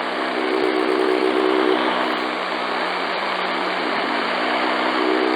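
Shortwave receiver in SSB mode on 4841 kHz: steady static hiss with a low, droning moan, a pitched tone with several overtones. The moan swells about half a second in, fades after about two seconds, and returns near the end.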